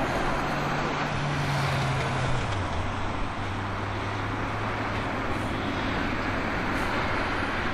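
Boeing 777-200LR's General Electric GE90 turbofans running at taxi power as the jet turns: a steady jet rush with a low hum that drops in pitch about two and a half seconds in.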